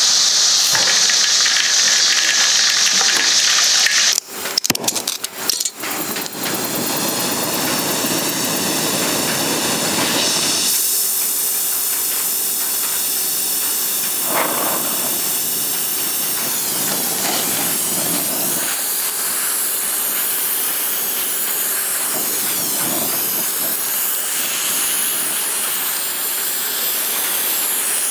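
Hot steel knife blade being quenched, a loud hiss that cuts off about four seconds in, followed by a few knocks. Then an oxy-fuel torch flame hisses steadily as it heats the blade.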